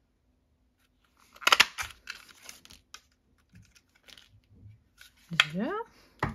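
A Stampin' Up! Strawberry Builder Punch clacking once, loudly, as it is pressed through white card stock about one and a half seconds in. Light rustling and small clicks follow as the punch is turned over and the cut-out strawberry and scraps are taken out, with another click near the end.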